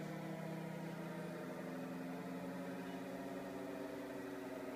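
Synthesised WWII Hawker Hurricane engine sound played on the iVCS3 synthesizer app: a steady, low drone of several stacked tones, like a piston aero-engine running.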